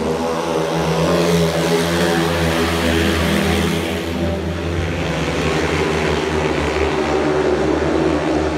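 Several 500cc single-cylinder speedway motorcycles racing round the track, their engines running together in a steady, continuous engine note.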